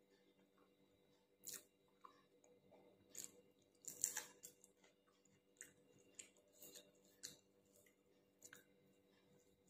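A person chewing a mouthful of rice and green chili, heard as faint, irregular crunches and mouth clicks, the loudest about four seconds in.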